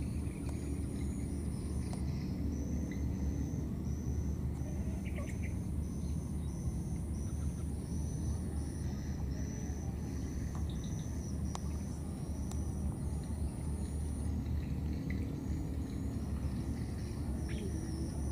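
Outdoor ambience: a steady low rumble, over which a high-pitched insect-like trill sounds in long stretches of a few seconds, with a row of short high chirps repeating about twice a second.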